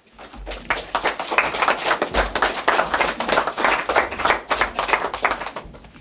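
Audience applauding: a dense patter of many hands clapping that starts just after the opening and dies away near the end.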